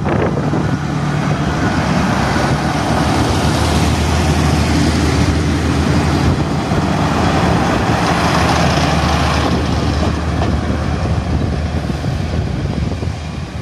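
Kominato Railway KiHa 200 diesel railcar pulling away and passing close by: its diesel engine running under power with a steady low drone, over the rumble of wheels on the rails. The sound eases off slightly near the end as the two-car set draws away down the line.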